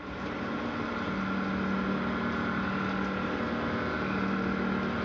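Haas mini mill spindle running as the tool cuts a 416 stainless steel bar: a steady machine hum with a constant higher whine. It swells up over the first second, then holds even.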